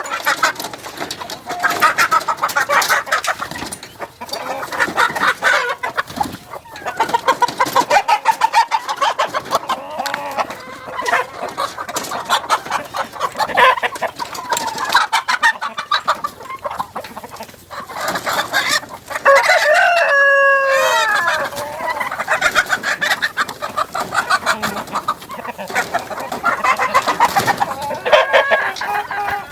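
A flock of local-breed chickens clucking continuously, with a rooster crowing once about two-thirds of the way through.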